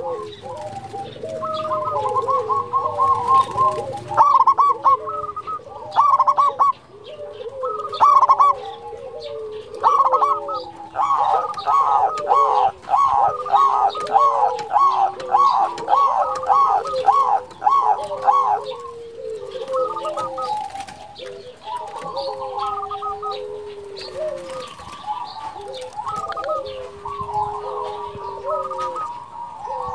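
Zebra doves (perkutut) cooing over and over in full song, several coo phrases overlapping. In the middle comes the loudest stretch, a fast run of evenly repeated notes lasting several seconds.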